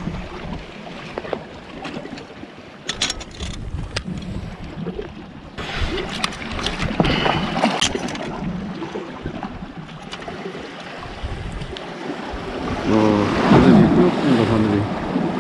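Surf washing against shore rocks with wind buffeting the microphone, under scattered clicks and rattles of pliers, a fish grip and a landing net being handled to unhook a fish.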